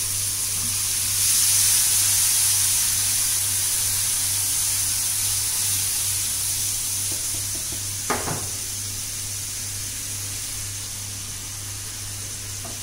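Chopped garlic sizzling in hot oil in a frying pan, with a little water just added. The sizzle swells about a second in, then slowly dies down as the pan is stirred with a spatula.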